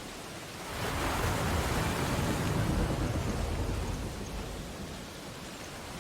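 Ocean surf on a beach: a wave breaks and rushes in about a second in, swelling into a loud wash and fading away over the next few seconds, over a steady background hiss of surf.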